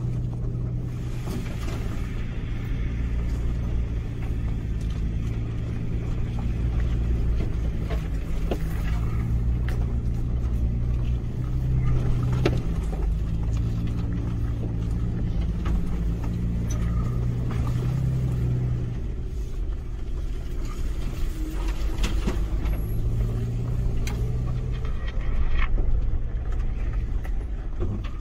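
Toyota FJ Cruiser's 4.0-litre V6 engine running at low revs as the truck crawls over a rough dirt and rock trail, its pitch rising and falling a little with the throttle. Occasional short knocks come from the truck jolting over the rough ground.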